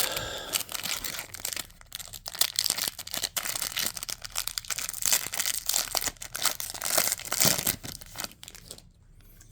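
A foil trading-card pack being torn open and crinkled by hand: irregular crackling and tearing that stops just before the end.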